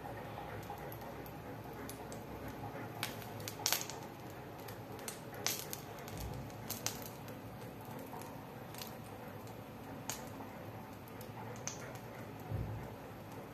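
Burning, charred wooden matchsticks crackling: scattered sharp pops and snaps, loudest about four seconds in, over a steady low hiss.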